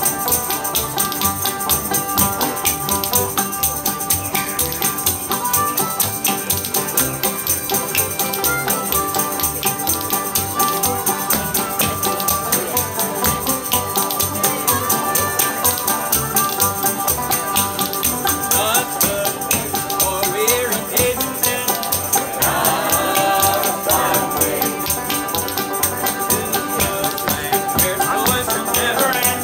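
Old-time string band playing gospel in a bright, steady tempo: acoustic guitars, banjo and washtub bass, with spoons clicking a fast, even rhythm. Group singing comes in a little past the middle.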